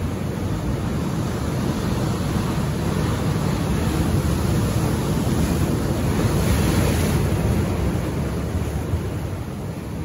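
Ocean surf breaking over shoreline rocks: a continuous rush of churning white water that swells to a wave crashing into spray about six to seven seconds in, then eases off.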